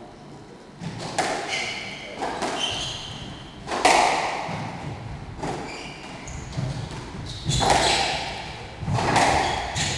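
Squash rally: a series of sharp ball strikes off rackets and the court walls, ringing in the enclosed court, the loudest about four seconds in. Shoes squeak briefly on the wooden floor between shots.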